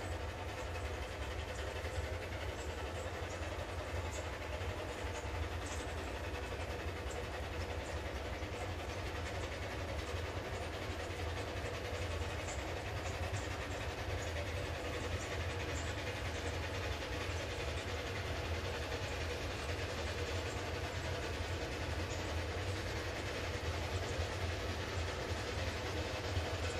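Climax geared steam locomotive No. 1694 working a test train up a slight grade, heard approaching but not yet close: a steady low rumble that grows slowly louder.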